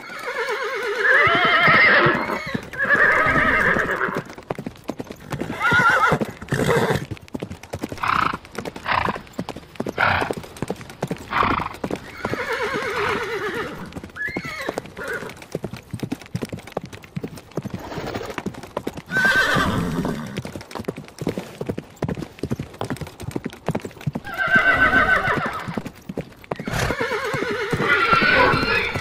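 Horses whinnying: several long, quavering neighs, in pairs near the start and the end and singly around the middle. Hoofbeats clip-clop in between.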